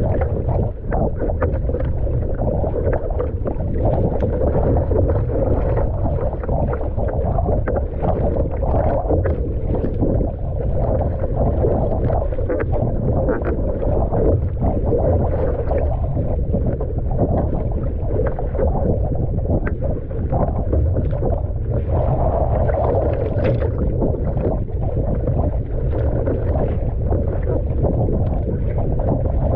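Choppy sea water slapping and splashing against a surfski's hull as the paddle blades dig in stroke after stroke, with heavy wind buffeting the microphone.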